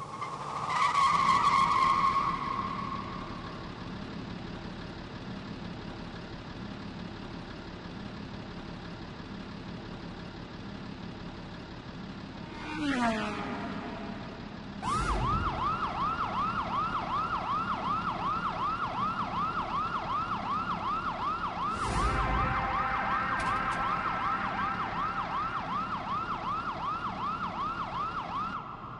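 A steady electronic drone with a falling glide in pitch about halfway through. Then a siren-like warbling tone starts suddenly and runs on, rising and falling about twice a second.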